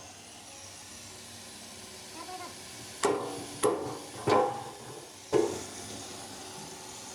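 Metal struck four times over about two and a half seconds, each sharp knock followed by a brief ringing tone.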